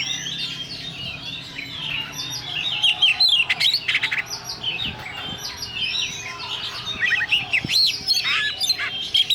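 Several songbirds singing over one another: a dense mix of quick chirps, trills and whistles with no pause.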